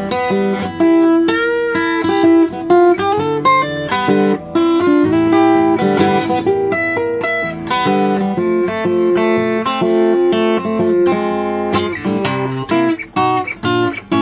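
Solo acoustic guitar playing an instrumental blues break, with picked treble notes over a steady bass.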